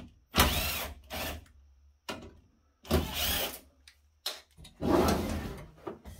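Small electric screwdriver running in three short bursts of about a second each, backing screws out of the side of a metal switch-module chassis.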